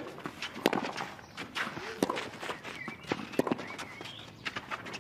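Tennis rally: racket strings striking the ball back and forth, sharp hits about once a second, with short grunts from the players on some of their shots.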